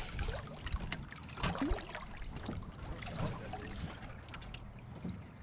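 Light knocks and clatter of fishing gear being handled in an aluminum boat, in scattered short clicks. A faint steady high tone comes in near the end.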